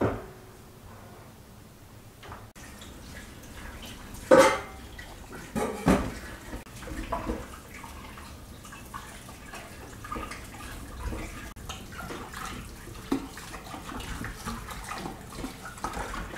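Kitchen tap running into an enamel pot while potatoes are scrubbed by hand under the stream, with water splashing. There are two loud knocks about four and six seconds in, and lighter knocks after them.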